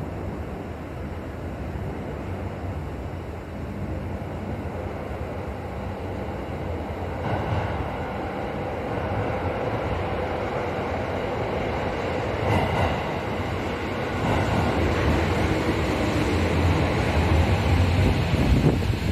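Chiyoda Line subway train approaching through the tunnel and running into an underground station platform. Its noise builds steadily over the second half and is loudest near the end as the cars sweep past.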